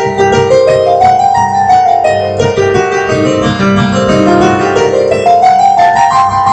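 Electronic keyboard playing a piano-voiced instrumental solo, runs of notes climbing and falling over a steady low accompaniment.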